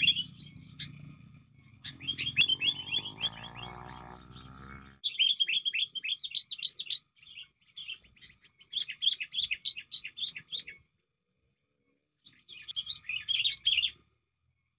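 Sooty-headed bulbul (kutilang) chattering in rapid runs of short, sharp chirps, in several bursts of about two seconds with short pauses between them.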